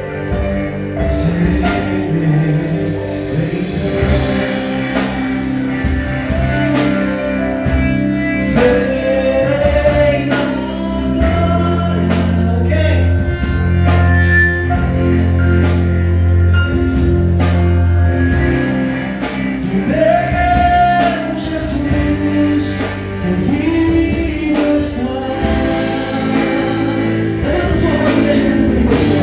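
A live gospel worship song: a church band with drums, bass and guitar playing a steady beat under singing voices, with a long held bass note in the middle.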